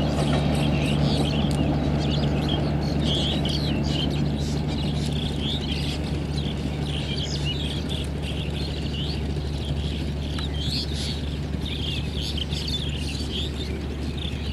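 Birds chirping repeatedly over the steady low drone of a distant diesel-hauled train, which fades away as the train moves off.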